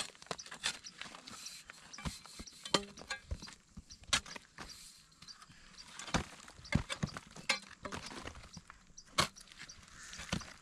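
Metal shovel blade digging into hard, dry cracked mud: irregular knocks and scrapes as it chops and prys at the clay, with chunks of dried clay breaking loose.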